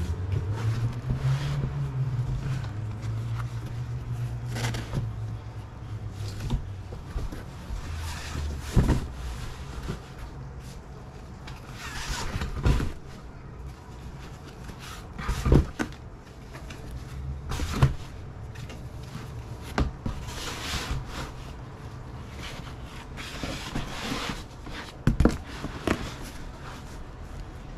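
Lengths of fabric being handled and packed back into a box: rustling, with a handful of sharp knocks and thumps, over a low steady hum.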